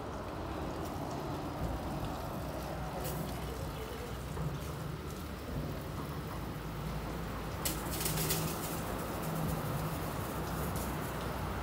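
WashTec Combiwash SilverLight rollover car wash gantry working over a car: a steady machine hum under water spraying and dripping, with a brief louder hiss of spray about eight seconds in.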